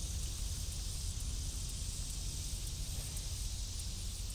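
Steady outdoor background: a low rumble under an even high hiss, with no distinct event standing out.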